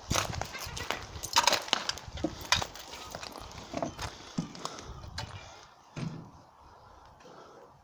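Footsteps crunching over debris, with many sharp cracks and snaps underfoot; the steps thin out and go quiet in the last couple of seconds.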